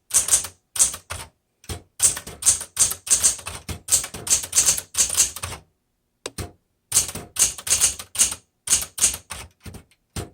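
Smith Corona Galaxie 12 manual typewriter being typed on: quick runs of type bars striking the platen, several a second, with a short pause about halfway through.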